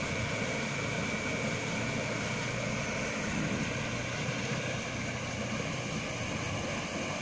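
Steady rushing of a river's flowing water, swollen by a day of rain, with a faint steady high tone above it.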